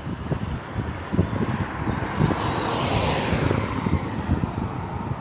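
A vehicle passing by, its noise swelling to a peak about three seconds in and then fading, over gusty wind rumble on the microphone.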